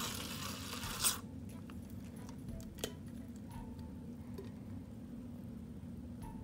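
Plastic syringe squirting water into a foam cup for about a second, ending in a sharp click. A single smaller click follows a couple of seconds later, then a few faint handling ticks.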